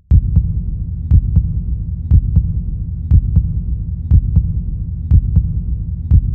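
A heartbeat-style pulse laid over the footage: a double thump, two beats about a quarter-second apart, repeating once a second over a low steady hum. It starts abruptly at the outset.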